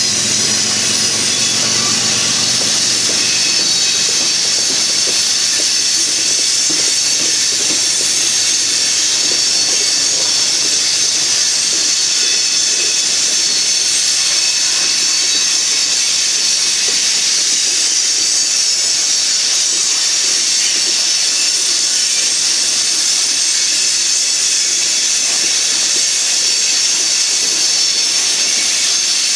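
Covered hopper cars of a freight train rolling past, their steel wheels on the rails making a steady high hiss with a faint rumble underneath.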